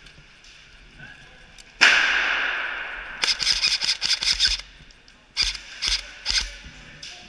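Airsoft guns firing: a rapid burst of shots lasting about a second and a half, then three single shots about half a second apart. Just before the burst comes a loud sudden hiss that fades away over about a second and a half.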